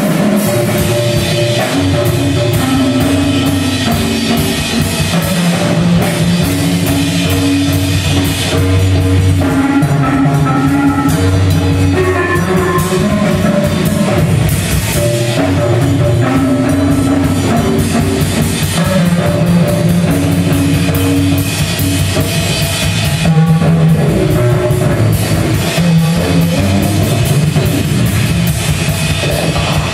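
Live band playing loud, instrumental music: a drum kit keeping a steady beat under sustained bass and guitar notes through amplifiers.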